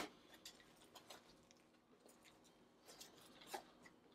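Near silence with a few faint crinkles of plastic wrap as hands press pie dough into a pie pan, the clearest one near the end.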